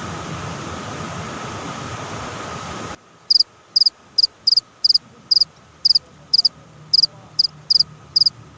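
A steady hiss with a faint whine cuts off abruptly about three seconds in. A small animal then calls in repeated short, high chirps, about two a second, against a quiet background.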